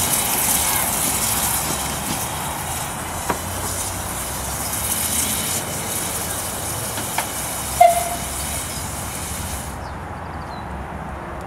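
15-inch gauge 0-4-2T steam tank locomotive moving slowly, with a steady hiss of steam and a couple of light clicks from the wheels over the rails. A short high squeak about eight seconds in is the loudest moment, and the hiss cuts off suddenly near the end.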